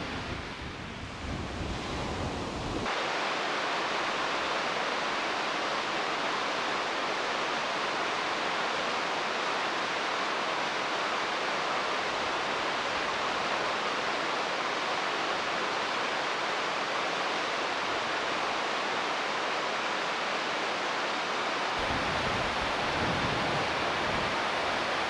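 Waves breaking on a rocky shore with wind buffeting the microphone, which switches suddenly about three seconds in to the steady, even hiss of a shallow river running over stones. A low rumble of wind comes back near the end.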